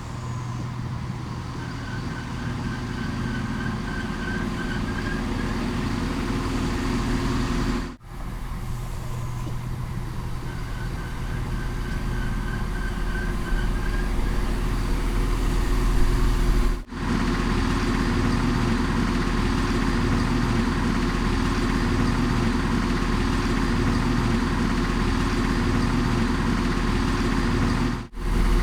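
A train's engine running steadily, with a strong low rumble and humming tones. It is heard as a series of takes, cut off suddenly about eight and seventeen seconds in and again near the end. The third take is louder.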